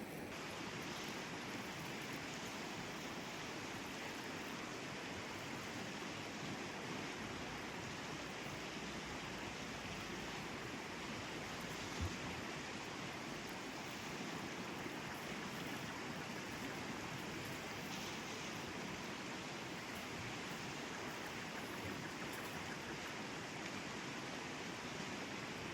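Mountain stream flowing steadily, an even rush of water, with a single brief knock about twelve seconds in.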